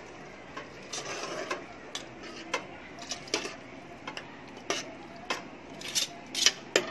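Spoon stirring prawn curry in a pot just thinned with water, knocking and clinking against the pot at irregular intervals, more often and louder near the end.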